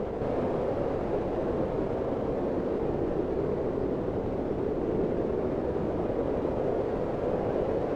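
Blizzard wind: a steady, even rush of wind noise without clear gusts or whistling.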